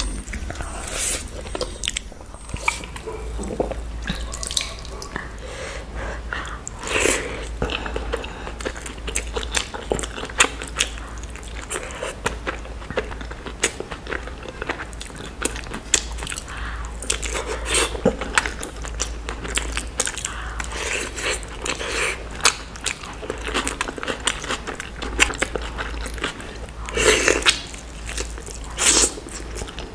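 Close-miked eating sounds: a person biting and chewing curried eggs and chicken taken by hand, with many short wet clicks, over a steady low hum.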